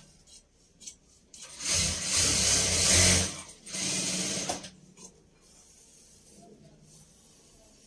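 Large tailor's scissors cutting through cloth laid flat on a table along a chalk line. The cutting comes in two stretches, the first about a second and a half in and a shorter one about three and a half seconds in.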